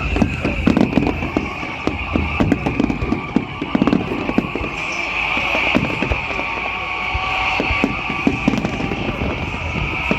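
Fireworks display: a dense, irregular run of bangs and crackles, with a steady high-pitched tone behind them.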